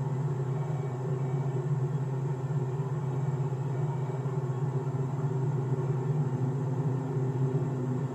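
Steady low rumble of a car idling in stopped traffic, heard from inside the cabin.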